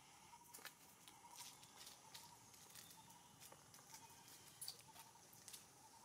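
Near silence: faint outdoor ambience with a steady faint high hum and scattered soft clicks and rustles.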